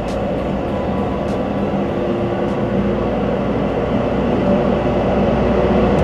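Steady rumbling, vehicle-like noise that slowly grows louder, with a few faint clicks.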